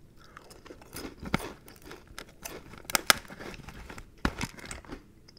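Crispy fried chicken being torn apart by hand and eaten: a scattering of soft crackles from the breading, with a few sharper clicks.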